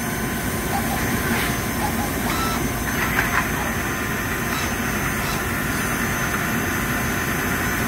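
Traub TNL-26 CNC Swiss-type lathe running through its machining cycle: a steady mechanical hum of the spindles with a faint steady whine, as it drills on the main spindle and bores on the sub spindle. A couple of short, harsher cutting sounds come about a second and a half and three seconds in.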